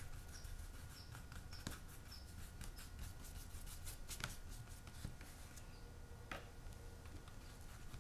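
Faint brushing and scratching of a small angled paintbrush laying acrylic paint onto smooth hot-press watercolour paper, with a few sharper clicks among the strokes.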